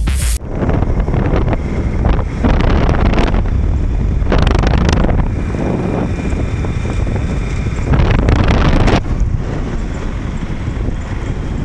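Wind buffeting the microphone on a moving motorcycle, with the engine and road noise underneath; the gusts swell louder several times.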